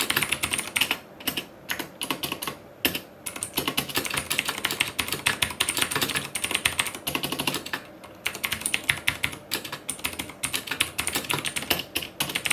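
Fast typing on a tenkeyless mechanical keyboard with Cherry MX Blue switches: a dense run of crisp clicks as the keys actuate, with a few short pauses.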